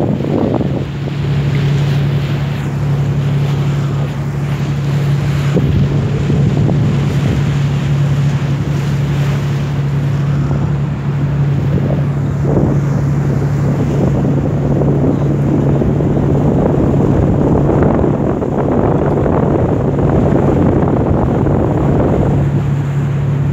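Cruise boat's engine running with a steady low hum, under wind buffeting the microphone in gusts and water rushing past the hull.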